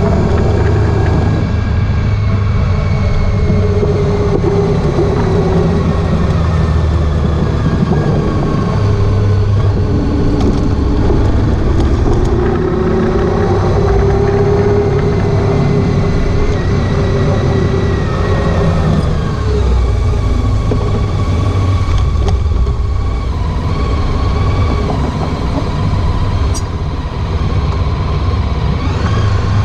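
Honda ST1300 Pan European's V4 engine running under way, with rushing wind and road noise. The engine's pitch rises and falls with the throttle and gear changes.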